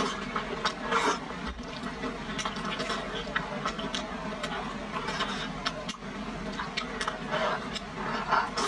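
Wet slurping of thick sauce-coated noodles, with sticky mouth clicks and smacks while chewing. The louder slurps come about a second in and again near the end.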